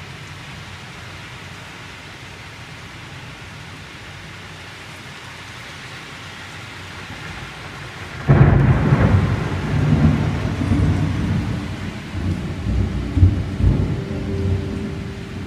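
Steady heavy rain, then a sudden, very loud thunderclap from a close lightning strike about eight seconds in, rolling on into a long rumble.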